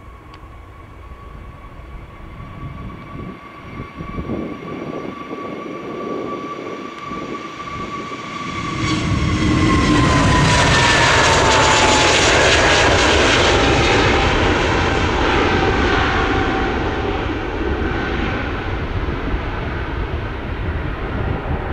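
Heavy jet airliner's engines at takeoff power going past. A steady whine drops in pitch as the jet passes about nine seconds in, while the engine roar swells to its loudest over the next few seconds and then slowly fades.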